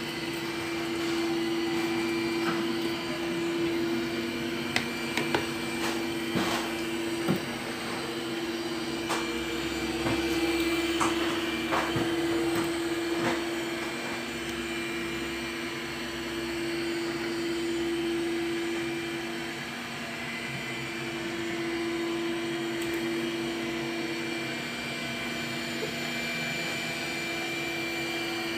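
Robot window cleaner's suction fan running steadily with a constant whine, broken by a few sharp clicks and knocks in the first half as it moves across the glass.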